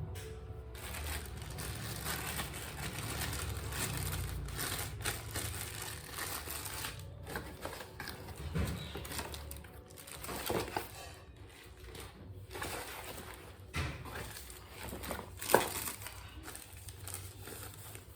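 Handling noise from unpacking a cordless phone: packaging rustling and crinkling, with scattered clicks and knocks as the handset and box are handled.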